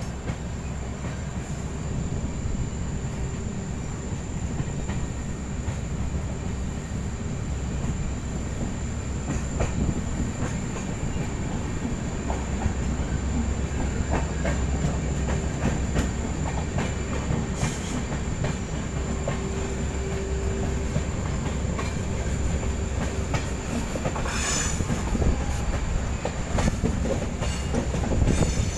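Passenger train running on the rails, heard from an open coach door: a steady rumble of wheels on track with scattered clicks, and a brief high-pitched wheel squeal near the end.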